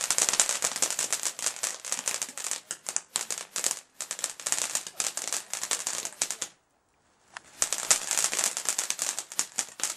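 Ground firework fountain spraying sparks with a dense, rapid crackling. It breaks off for under a second a little past the middle, then crackles on.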